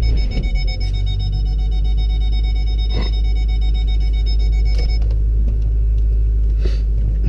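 A snowplowing vehicle's engine running with a steady, heavy low rumble. A high electronic beeping tone of several pitches sounds over it until about five seconds in.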